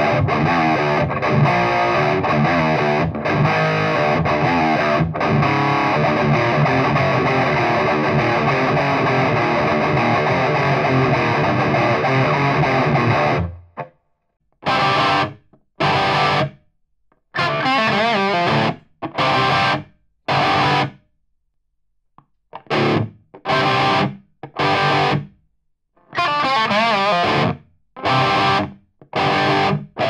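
Distorted electric guitar played through a Marshall 4x12 cabinet. It sustains continuously for the first half; then, about halfway in, it switches to a staccato riff of short chords cut off into complete silence between them, heard through the cabinet's old Celestion Custom speakers.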